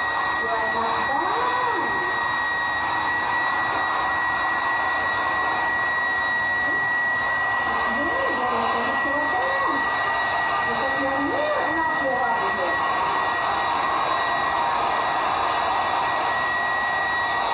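Handheld electric hair dryer running steadily, blowing air with a constant high motor whine over its rushing noise.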